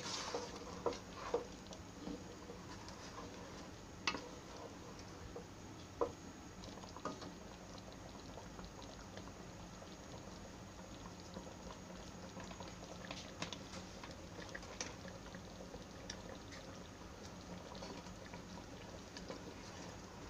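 Diced mango simmering in its own melted-sugar syrup in a pan: a faint, steady bubbling and popping, the fruit cooking down into jam. A few louder clicks and taps of a wooden spatula stirring come in the first several seconds.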